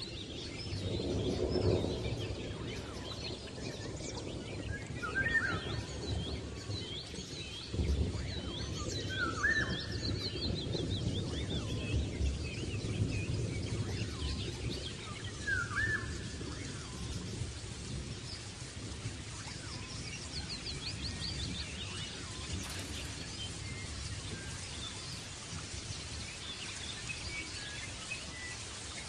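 Small pet bird giving scattered chirps, with a few louder rising-and-falling calls, over a steady low background rumble.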